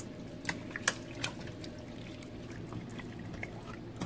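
A spoon stirring chopped vegetables, chicken and sauce with a little water in a stainless steel pot: a few light clicks in the first second or so, then faint wet sloshing and squelching.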